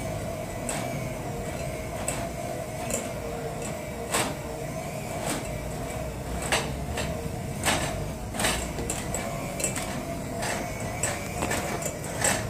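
Electric hand mixer running with a steady whine while mixing cake batter. Its beaters knock sharply against the glass bowl every second or so.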